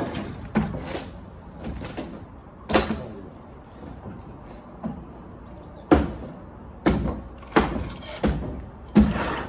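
Wooden boards and timbers knocking and banging during demolition of a wood structure: about ten irregular sharp impacts, the loudest about six and nine seconds in.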